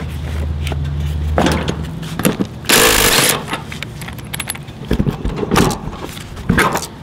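Metal tools clinking and knocking against a go-kart's steering parts as the tie rods and spindle are worked on. A low steady hum stops about two seconds in, and there is a short burst of hiss about three seconds in.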